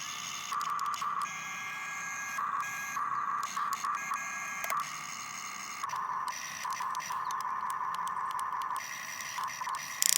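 Small electric motors and gears of a radio-controlled model excavator whining in start-stop runs: several short bursts, then a longer run from about six to nine seconds in, with a sharp click near the end.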